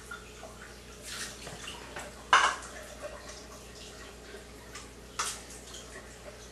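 Water from a water ionizer's outlet tube running at full flow into a kitchen sink and sample cups, with clinks and knocks of cups being handled; the loudest is a sharp knock a little over two seconds in, with another about five seconds in.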